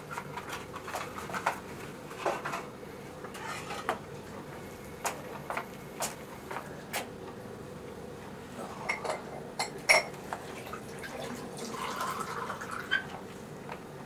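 Small hard household objects clinking and knocking as they are picked up and set down, with scattered clicks and taps.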